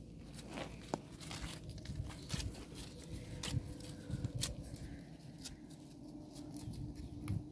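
Thin dry flatbread being torn and crumbled by hand: irregular crackles, rustles and small clicks.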